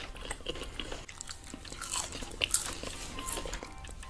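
Close-miked biting and chewing of fast food (a bacon burger, fries and chicken nuggets), with scattered crisp crunches and a sharper bite about two and a half seconds in.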